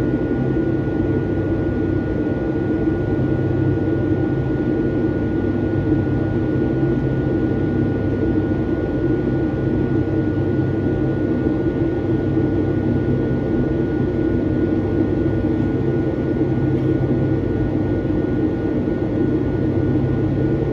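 Steady cabin drone of a Boeing 757-200 in flight, heard from a forward window seat: its Rolls-Royce RB211 turbofans and the rushing airflow make a constant low roar with a thin, steady high whine on top.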